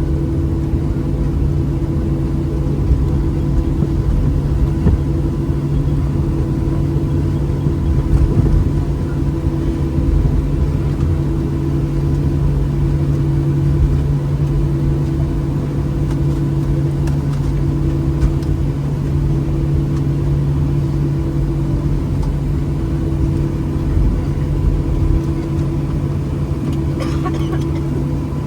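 Cabin noise of a Boeing 737-800 taxiing after landing: its CFM56-7B engines running at idle with a steady multi-tone hum over a low rumble.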